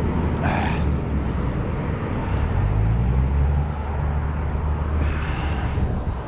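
Low, steady engine rumble from a motor vehicle, its pitch wavering slightly partway through, with short bursts of hiss near the start and about five seconds in.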